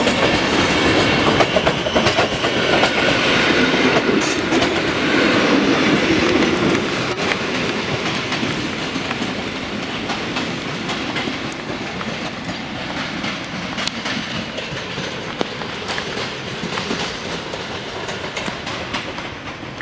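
Passenger coaches of a departing train rolling past, their wheels clicking over rail joints, then fading steadily as the tail of the train pulls away.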